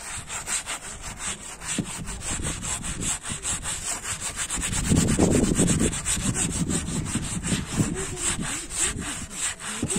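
Hand-sanding a caravan's body panel: an abrasive rubbed in quick circles under a gloved hand, a steady run of scraping strokes about four a second, loudest around the middle. The surface is being keyed for paint.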